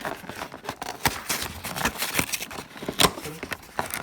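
A sealed Pokémon card box being opened by hand: irregular rustling and crackling of the packaging, with scattered sharp clicks and taps of cardboard, one louder click about three seconds in.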